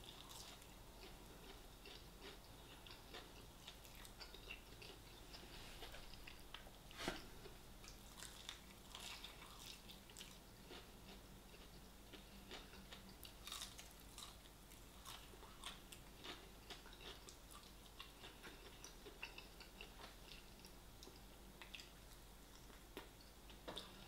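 Faint chewing and biting on KFC hot chicken wings, close to the microphone, with scattered soft mouth clicks; the sharpest comes about seven seconds in.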